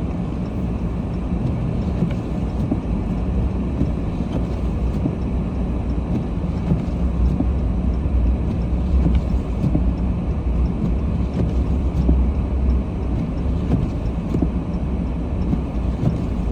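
Steady low rumble of a vehicle's engine and tyres on a snowy road, heard from inside the cab, growing a little louder in the middle as it drives on.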